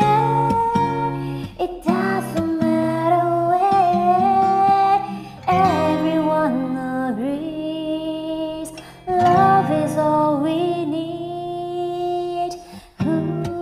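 A woman singing a karaoke track over an acoustic guitar accompaniment, holding long notes that slide between pitches, with short breaks between phrases.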